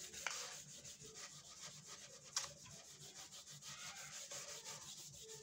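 Handheld whiteboard eraser wiping marker off a whiteboard: faint back-and-forth rubbing strokes, with one brief sharp tap about two and a half seconds in.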